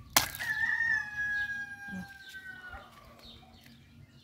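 A sharp snap, then a rooster crowing: one long held call that drops away after about two and a half seconds.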